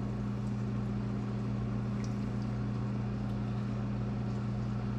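Steady low hum of a running kitchen appliance, unchanging, with a few faint ticks.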